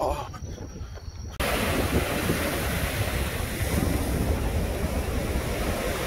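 Surf and wind on the microphone: a loud, even rush of breaking waves with low buffeting, cutting in sharply about a second and a half in.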